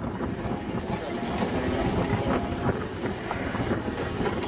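A 7.5-inch gauge ride-on miniature train rolling along its track, its wheels clattering steadily over the rails.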